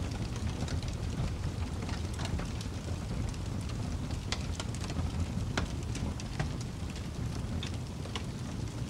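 Steady rain ambience: an even hiss over a low rumble, with irregular sharp droplet ticks about once a second.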